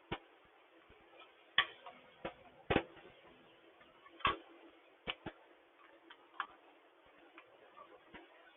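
A gasket scraper working old gasket material off a small engine's aluminium surface, heard as about a dozen light, sharp clicks and short scrapes at irregular intervals.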